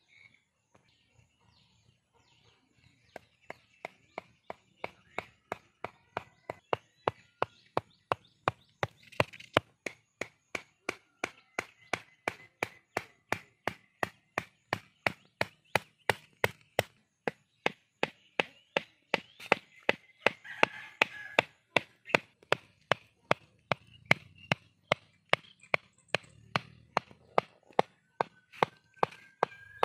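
Steady rhythmic chopping: a blade striking a wooden surface in sharp, evenly spaced knocks about two to three a second, starting about three seconds in.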